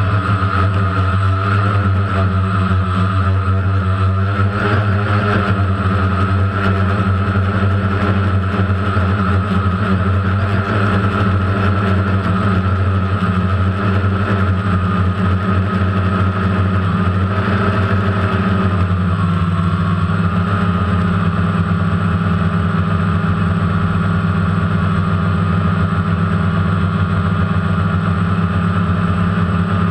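DJI Phantom quadcopter's motors and propellers running, a loud, steady multi-tone buzz heard close up from the camera mounted on the drone; about two-thirds of the way through, the tones shift in pitch.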